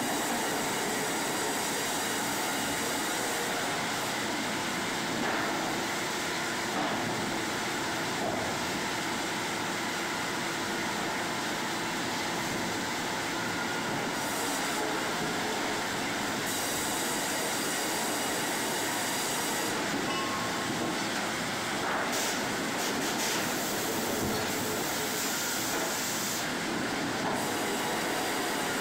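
Sawmill machinery running: a steady, dense mechanical din of conveyors and saws, with some clatter and squeal.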